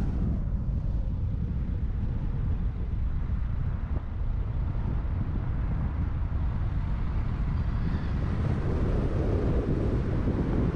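Car driving: a steady low rumble of road and wind noise.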